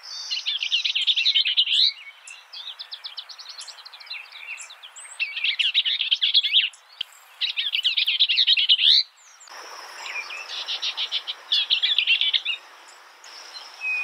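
Bell's vireo singing: short, fast chattering phrases of rapidly repeated notes, each a second or two long, separated by brief pauses. The background hiss changes abruptly about ten seconds in, where another recording is spliced on.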